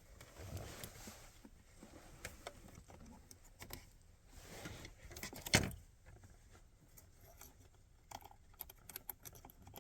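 Hands working wiring and a plastic electrical connector under a steering column: light rustling and scattered small clicks and rattles, with one louder sharp click about five and a half seconds in.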